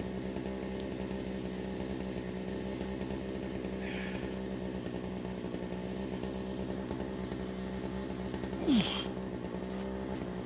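A small engine idling steadily, with one brief, louder sound of falling pitch near the end.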